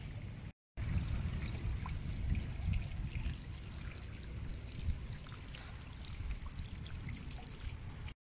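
Rainwater trickling and dribbling off layered rock ledges in thin streams, splashing into a shallow pool below, over a low steady rumble.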